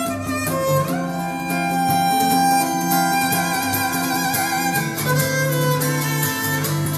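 Violin-led recorded music played back through TriArt Hartley loudspeakers: held, wavering violin notes with a slide up about a second in, over a steady bass line.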